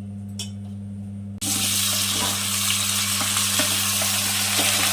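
Food sizzling in hot cooking oil in a pan, starting suddenly about a second and a half in and holding steady. Before that only a low steady hum and a single click.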